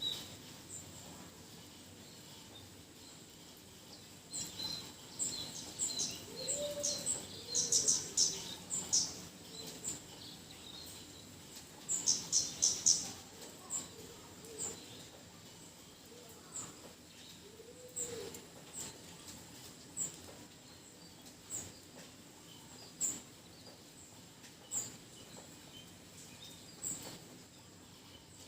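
Small birds chirping over a faint steady hiss of light rain: short high chirps repeat every second or two, with quick clusters of chirps twice in the first half and a few lower, rounder calls.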